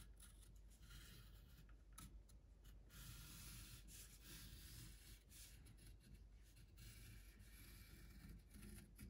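Faint scratching of a pencil tracing around a paper pattern laid on a wood block, in short irregular strokes.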